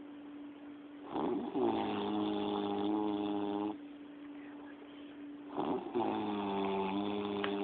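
A man snoring in his sleep: two long, pitched snores, each opening with a rough rasp, the first starting about a second in and the second near the end.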